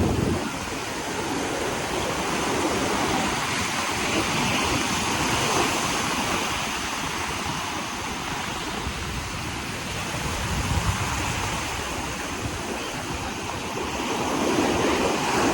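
Sea surf breaking and washing up the beach: a continuous rushing wash that swells a few times and eases between.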